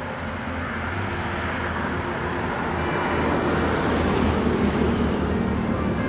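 Rushing, rumbling noise of a passing vehicle, building up over the first three seconds and then holding, with a few faint music notes.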